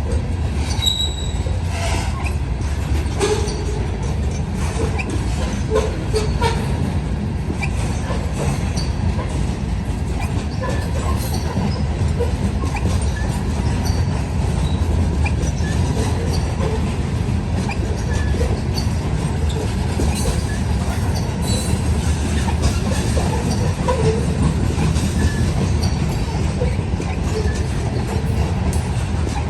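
Loaded freight train rolling past: a steady rumble of cars on the rails, with scattered short squeaks and clicks from the wheels.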